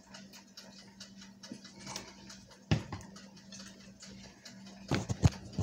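Quiet kitchen sounds over a faint steady hum: a single light click a little before the middle, then a short cluster of sharp clicks and knocks near the end, as a plate, fork and mustard bottle are handled.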